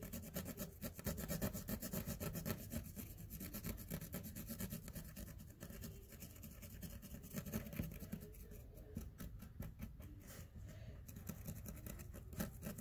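Marker tip rubbing back and forth across a textured fabric tote bag in rapid, scratchy colouring strokes.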